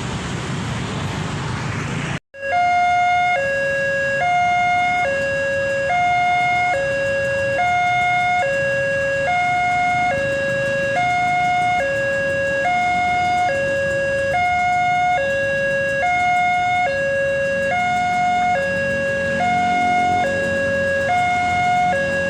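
Railway level-crossing warning siren sounding a two-tone hi-lo wail, switching between a lower and a higher pitch about every two-thirds of a second, a hoarse, almost laughing sound. Road traffic is heard for the first two seconds before the siren sets in.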